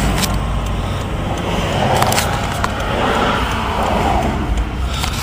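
Car cabin road noise while driving: a steady engine-and-tyre rumble, with a few light clicks about two seconds in.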